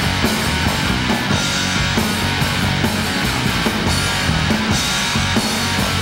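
A rock band playing live: electric guitar, bass guitar and drum kit, with a steady drum beat.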